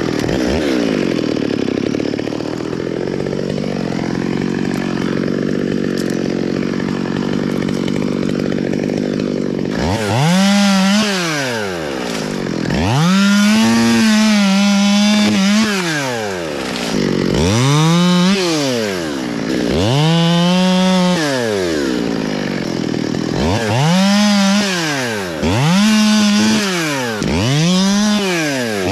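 Top-handle chainsaw running in a cut for about ten seconds. It is then revved up and back down about seven times in quick succession as it makes short cuts through branches.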